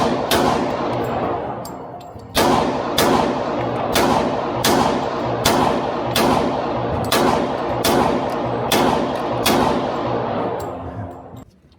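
Pistol shots from a .40 S&W Glock 23 fired in a steady string: two quick shots, a pause of about two seconds, then about a dozen more at a steady pace of one every half second or so, each with a long echoing tail.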